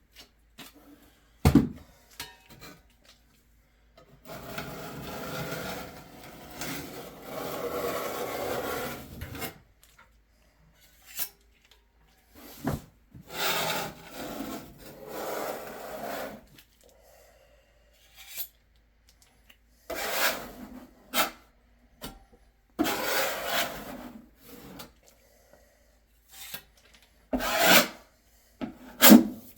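Scraping strokes of a hand tool spreading and smoothing elastic seam sealant over shower backer-board seams, several strokes of one to five seconds each. Sharp knocks come between them.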